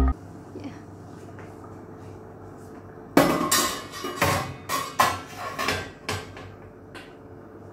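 Stainless steel steamer pot and insert clanking: after a quiet start, about ten sharp metallic knocks and rattles, each with a short ring, from about three seconds in until near the end.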